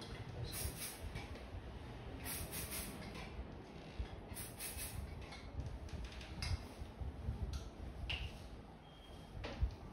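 Quiet handling of hair as it is sectioned: soft rustles, three short hisses in the first half, and a sharp click near the end.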